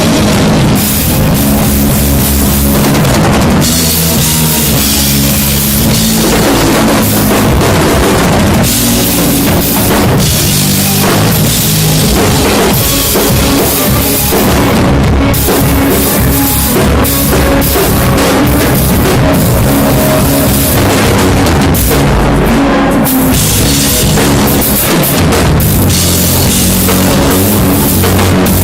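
Live band playing loud rock-style music at a sound check, with a full drum kit, bass drum and cymbals driving a steady beat. The recording is very loud and of poor sound quality.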